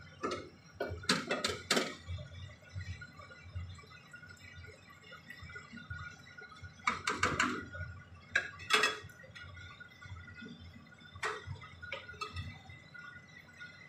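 A spoon knocking and scraping against a non-stick frying pan while a cream sauce is stirred. There are three clatters at the start, a busier cluster about seven to nine seconds in, and two more knocks near the end.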